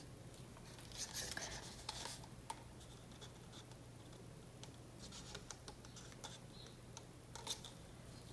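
Faint scratching, rustling and a few light clicks of gloved hands handling plastic paint bottles and cups, over a low steady hum.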